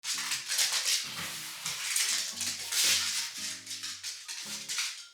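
Background music: a rattling maraca-like shaker over low held notes, stopping near the end.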